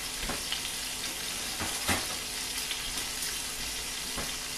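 Duck frying in hot oil in a frying pan, a steady sizzle, with a few sharp knocks about a second apart.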